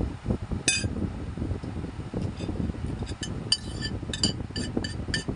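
Metal spoon clinking against a bowl while eating, with one ringing clink about a second in and a quick run of clinks in the second half, over close-up chewing and mouth noises.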